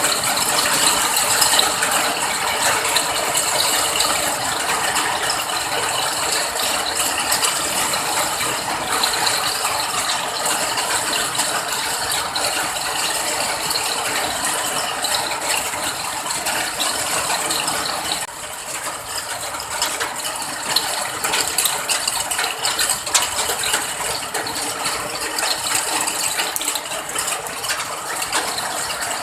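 Steady rain: a dense, continuous patter of drops, briefly a little quieter about two-thirds of the way through.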